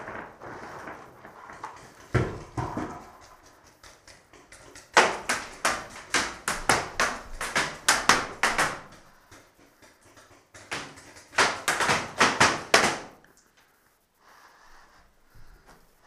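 Paintballs smacking into the walls and ceiling of a small room from several sides, fired from outside. The hits come in two rapid volleys, the first lasting about four seconds and the second about two and a half, with a single hit a couple of seconds before them.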